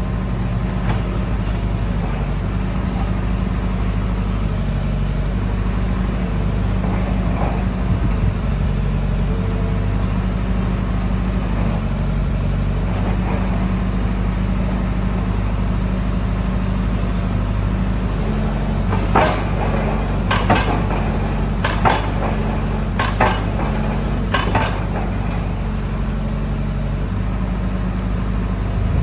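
Excavator's diesel engine running steadily under load. About two-thirds of the way through come five sharp knocks, roughly a second and a half apart.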